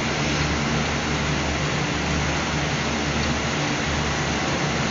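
Steady machinery drone: a constant low hum under an even hiss, with no change in pitch or level.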